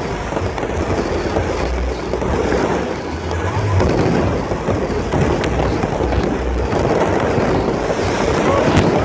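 Aerial fireworks bursting overhead in a continuous, dense run of crackles and bangs.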